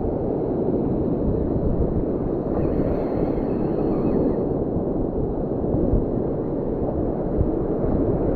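Wind rumbling on the microphone over the wash of surf.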